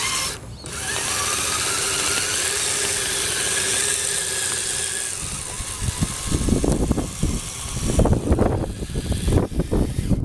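Electric motor and geared drivetrain of a tracked 1/10-scale RC crawler whining steadily under throttle, after a brief drop near the start. From about halfway on, irregular low rumbling thumps cover the whine.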